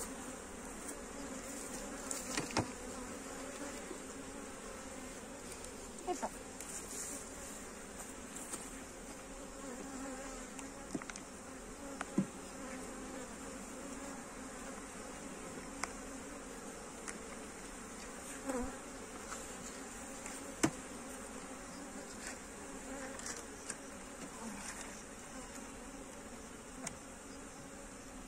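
Honeybee colony in an open hive giving a steady, dense hum, with a few sharp clicks and knocks scattered through it.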